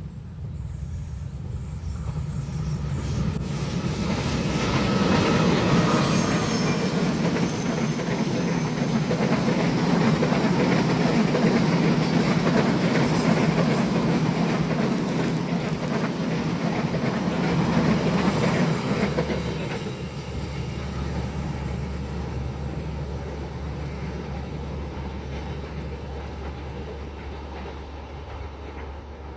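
A passenger train passing on the line, the rumble and rattle of its wheels and carriages on the rails. It builds over the first few seconds, stays loud for about fifteen seconds, then drops away to a low steady hum.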